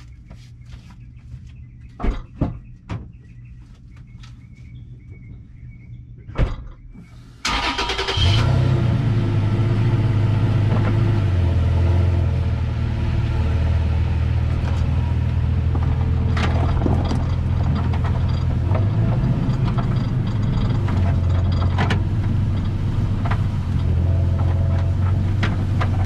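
A few scattered knocks and clicks, then a Toyota Tacoma pickup's engine starts about seven seconds in and keeps running steadily, heard from under the truck beside the rear suspension.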